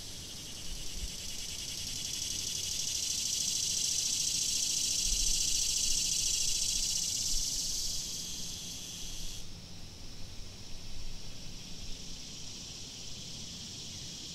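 Insect chorus: a high, fast-pulsing chirring that swells over the first several seconds. Its top part drops off abruptly about nine and a half seconds in, and it carries on more faintly after that.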